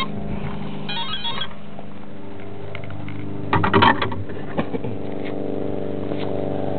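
Electric motor of a GWS Slow Stick RC plane humming steadily, with a short run of electronic beeps about a second in and a brief loud clatter about halfway through. The hum grows stronger near the end.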